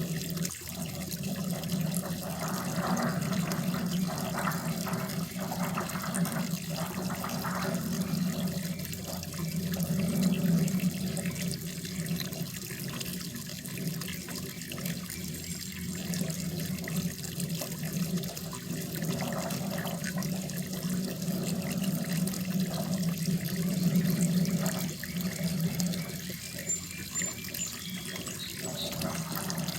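Running water pouring and splashing steadily into a koi pond, swelling and easing slightly in level.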